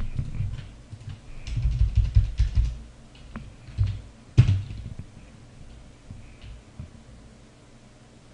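Typing on a computer keyboard: quick runs of keystrokes over the first four seconds or so, one sharper click about four and a half seconds in, then a few fainter scattered taps.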